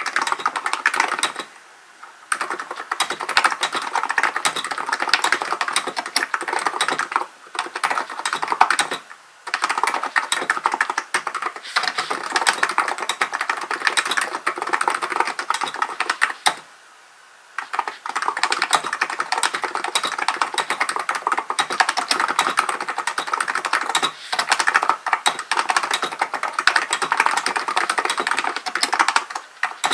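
Hansung GK898B electrostatic-capacitive keyboard being typed on in fast, continuous runs of keystrokes, broken by short pauses about two seconds in and near nine seconds, and a pause of about a second around the middle.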